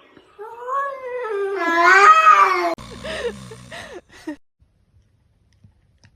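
A cat yowling: one long, wavering, drawn-out cry of about two seconds, followed by a few shorter, fainter cries about three seconds in.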